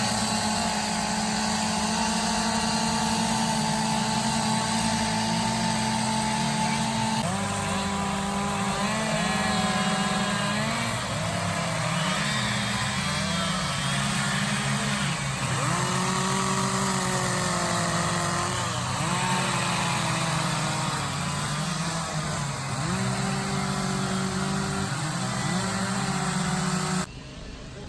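Chainsaws cutting wood for carving, running high and then revving up and down over and over. The sound cuts off suddenly near the end.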